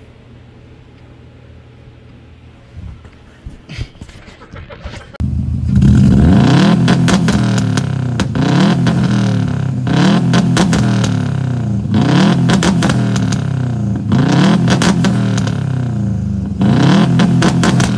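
Car engine revved again and again, each rev rising in pitch and falling back about every two seconds. It starts suddenly about five seconds in, after a low hum and a few faint clicks.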